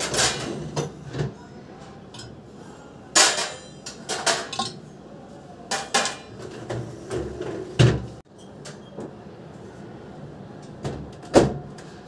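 Metal wire dish rack and dishes clattering as they are handled and set down: a string of separate sharp clanks and knocks, the loudest near the end.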